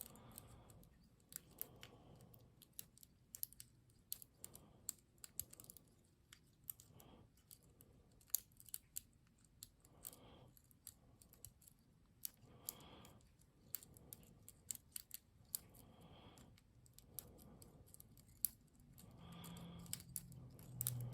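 Faint, irregular small metallic clicks and scrapes of a lock pick working the pin stack of a padlock under tension, the sounds of single-pin picking.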